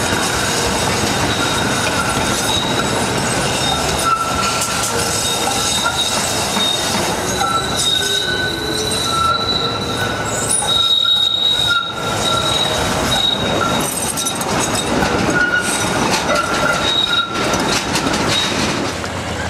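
Milan trams' steel wheels squealing on the tight curves of a street-track junction: a high, steady squeal at two pitches that comes and goes, over the rumble of the trams and the clack of wheels crossing the rail crossings.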